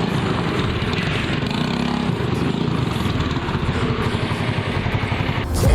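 Honda Activa 125 scooter's single-cylinder four-stroke engine running steadily, freshly rebuilt with a new piston and timing chain.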